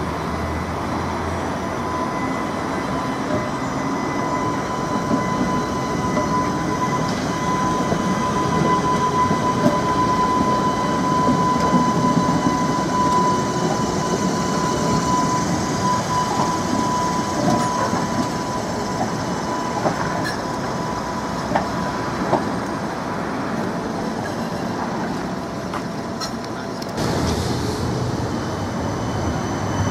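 Tatra T5C5 trams, a coupled pair, running past on the rails, with a steady high whine over the rolling noise that fades out about two-thirds of the way through and scattered wheel clicks. About three seconds before the end a deeper rumble comes in as a CAF Urbos tram approaches.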